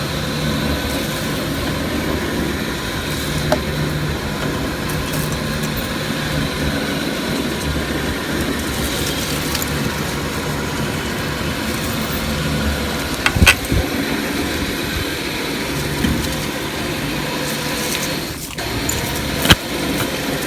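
Electric winch motor running steadily as it drags a log off a trailer, with a few sharp knocks and cracks of wood partway through.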